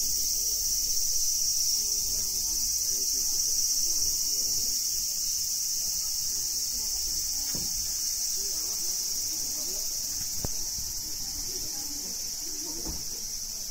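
A steady, high-pitched chorus of insects shrilling in the garden trees, unbroken throughout, with a few faint knocks.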